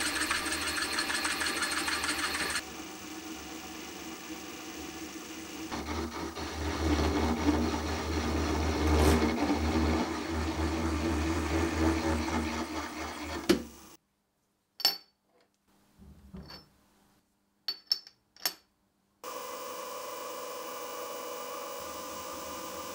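Milling machine drilling a metal block held in a vise: the spindle motor runs, with the grinding of the drill cutting, which changes and grows louder with a low hum when a larger drill opens out the hole. About 14 seconds in it stops; a few sharp clicks and knocks follow in near silence, then the spindle runs steadily again with an end mill fitted.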